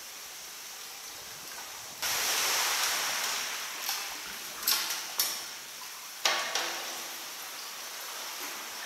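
Sea water splashing and sloshing around a kayak inside a sea cave: a sudden rush of water about two seconds in, then several sharp slaps that die away quickly.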